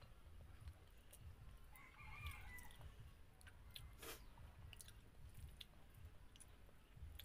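A rooster crowing faintly once, about two seconds in, a call of under a second. Around it, soft clicks and chewing sounds of a person eating with her hands.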